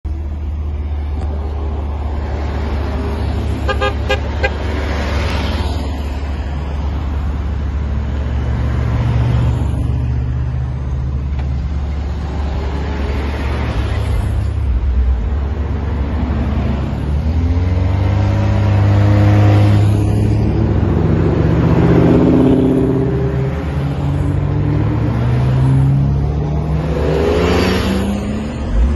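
Cars driving through an intersection one after another, engines rising and falling in pitch as they accelerate away, over a steady low rumble. Short repeated horn toots about four seconds in.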